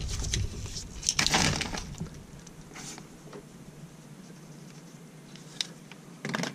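Handling noise: a hand moving a metal 1/4-inch jack plug and its lead about on a sheet of paper, with short rustles, loudest about a second in, a light click late on and another brief rustle just before the end.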